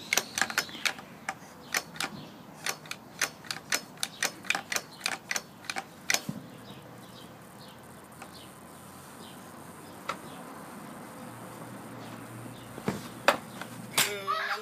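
Rapid sharp clicks and clacks from a toddler handling a mini pocket bike: a quick run of them for about six seconds, then a single one later, and a few more near the end. No engine sound; the bike is not running.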